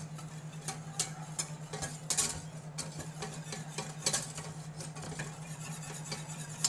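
Stainless steel wire whisk stirring flour into melted butter in a stainless saucepan, the wires clicking and scraping against the pan a few times a second over a steady low hum. This is a butter-and-flour roux being whisked together, the first stage of a bechamel sauce.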